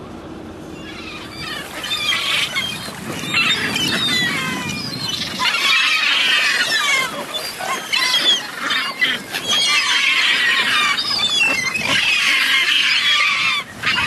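A crowd of gulls and mute swans calling on the water, with many short squealing calls overlapping densely from about a second in.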